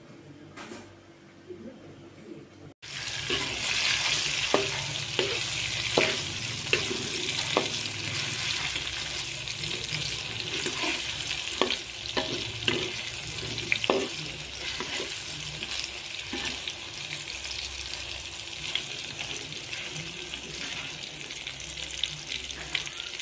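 Cubes of tempe deep-frying in hot oil in a wok: a steady sizzle with many sharp pops and crackles. The sizzle starts suddenly about three seconds in.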